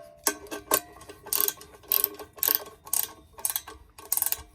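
Hand socket ratchet with a 3/4 socket being worked back and forth to tighten a vise mounting bolt: rapid pawl clicking in repeated strokes, about two a second, with a light metallic ring.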